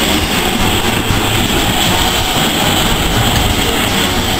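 LNER B12 4-6-0 steam locomotive no. 8572 moving slowly past at close range, a loud, steady hiss and rumble.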